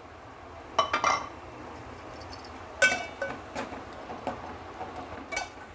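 A steel spatula stirring masala in a stainless steel pot, clinking against the pot a few times with a short metallic ring.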